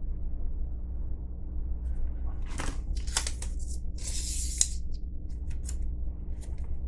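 Paper rustling and crinkling as the folded paper tag of a SWAT-T tourniquet is handled and unfolded. Short scratchy rustles begin about two and a half seconds in, and the longest comes about four seconds in. A steady low hum sits underneath.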